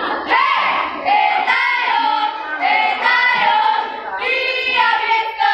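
A group of girls singing together in unison, in a run of sustained phrases about a second long with short breaks between them.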